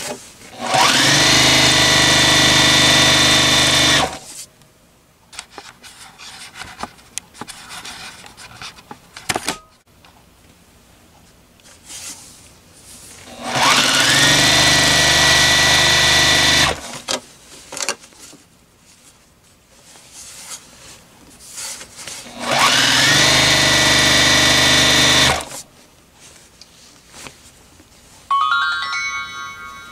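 Electric sewing machine stitching a hem in three runs of a few seconds each, its motor whine rising quickly to a steady pitch and then stopping sharply. Light clicks between the runs, and near the end a short rising series of electronic tones.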